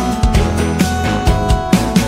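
Background music with a steady drum beat under sustained instrument notes.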